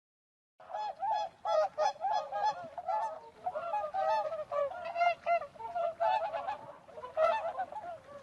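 A flock of large waterfowl honking, many calls overlapping in a continuous chorus that begins about half a second in.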